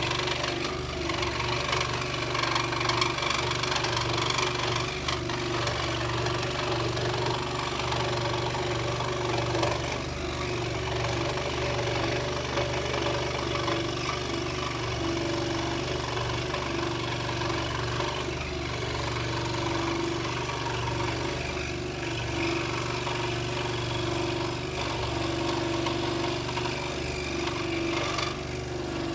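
Scroll saw running steadily as its blade cuts, a continuous machine hum with a buzzing rattle that holds even throughout.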